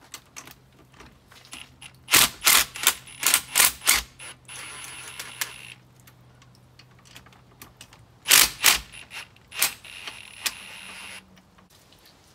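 Ridgid cordless impact driver hammering on a 5/8-inch socket to break loose the outdrive's mounting bolts. It comes in two bursts of rapid impacts about six seconds apart, each followed by a second or so of the tool running more steadily.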